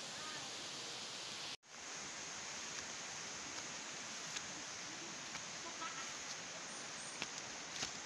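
Steady hiss of outdoor forest ambience, with scattered light ticks and a few faint chirps. The sound cuts out for a moment about a second and a half in.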